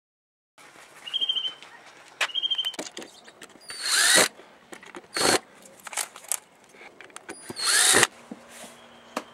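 DeWalt 18-volt cordless drill run in short bursts of about half a second each, three of them loud, with clicking and rattling between them.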